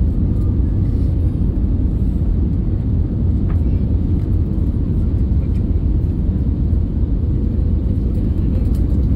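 Cabin noise of an Airbus A320neo on final approach with its flaps extended: a steady low rumble of engines and airflow, with a faint steady hum above it.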